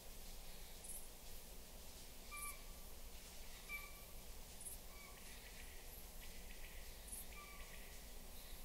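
Nature ambience: a short, flat animal call repeats about once a second over a steady hiss, with faint high chirps at intervals.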